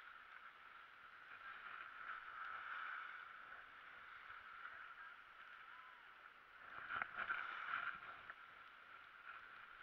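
Skis hissing and scraping over packed snow, swelling twice.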